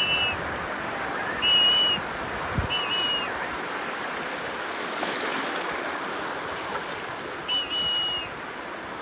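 Surf washing on the beach as a steady rush of noise. Through it come short, high whistled notes, some doubled, heard four times.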